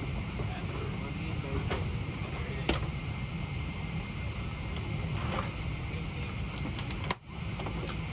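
Steady low rumble of an airliner's cabin noise on the ground at the gate, with a few scattered clicks and knocks and a brief drop in sound about seven seconds in.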